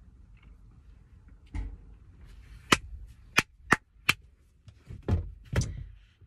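Four sharp hand claps in quick, uneven succession around the middle, with a few softer thumps before and after.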